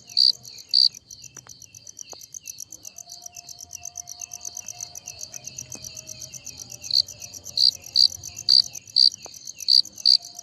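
Crickets chirping: loud, high chirps about twice a second that stop about a second in and start again about seven seconds in, over a steady fast trill from other insects.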